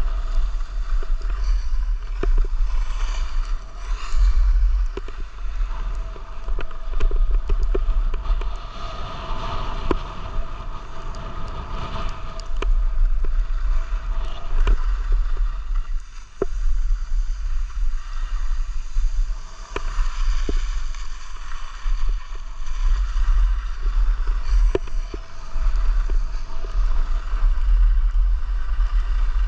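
Wind buffeting the microphone of a skier's camera, a heavy fluttering rumble, over the steady hiss and scrape of skis sliding on packed snow, with scattered sharp clicks.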